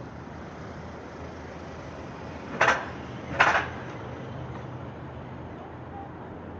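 Steady city street ambience with a low traffic hum, broken a little over two seconds in by two short, loud bursts of hissing noise less than a second apart.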